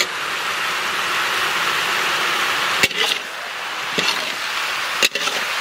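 Thin-cut potatoes sizzling steadily in hot mustard oil in a large metal karahi, with three sharp clicks of a metal spatula striking and scraping the pan about a second apart.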